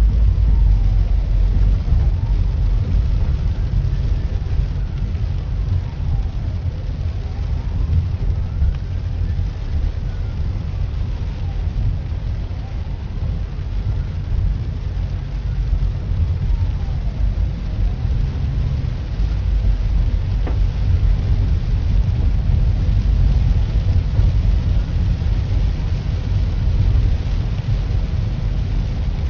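Low, steady car-cabin rumble with heavy rain on the windscreen, and a Hong Kong Fire Services ambulance's siren faintly wailing up and down ahead, slowly rising and falling about once every five seconds.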